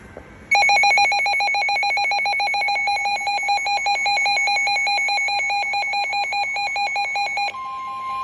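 Emergency weather alert tones from a weather radio: a rapidly pulsing, warbling electronic alarm for about seven seconds, then a steady single-pitch alert tone near the end, the NOAA Weather Radio 1050 Hz warning alarm tone that heralds a warning.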